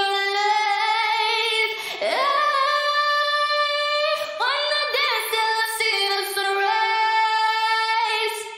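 A female vocal sample singing long held notes with slides between them, processed through Baby Audio Crystalline reverb, fading into its reverb tail near the end.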